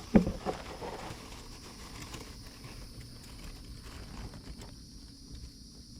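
A couple of sharp knocks in the first half-second, then faint uneven rustling, over a steady high-pitched drone of insects.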